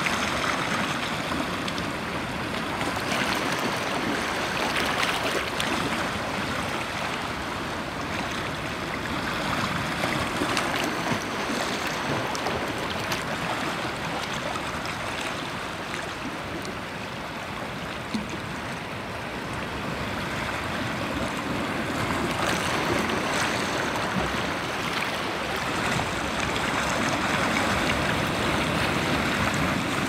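Small sea waves washing and swirling over shallow rocks at the shoreline: a steady rush of water that swells and eases every few seconds. Recorded through a waterproof case around the phone.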